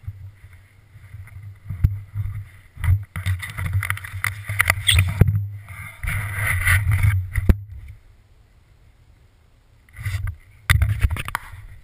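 Wind buffeting and handling noise on a helmet camera's microphone: a low rumble with uneven gusts of rustling and knocking, a lull about eight seconds in, then another burst near the end as the camera is moved.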